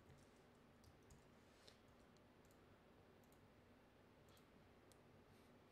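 Near silence: room tone with a few faint, scattered keyboard and mouse clicks.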